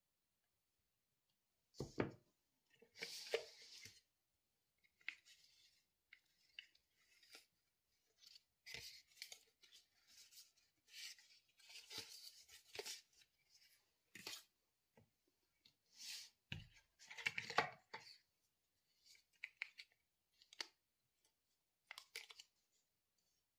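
Hands handling an iPhone 11 box's paper document sleeve and cardboard inserts: paper and cardboard rustling and sliding in short, irregular bursts, with a few soft knocks as pieces are picked up and set down.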